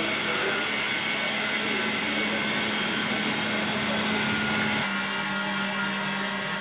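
Steady mechanical whir and hum of a spray-boom calibration rig with rotary atomizers running. About five seconds in it shifts abruptly to a slightly lower hum with less hiss.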